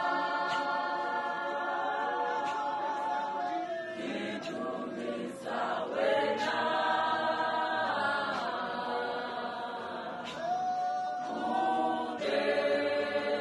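Women's church choir singing together in long held notes, phrase after phrase, with short breaks between the phrases.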